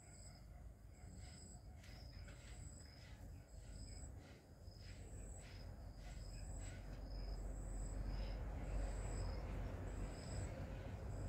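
An insect chirping: a short, high chirp repeated about once a second. Under it a low rustling, rumbling noise grows louder in the second half.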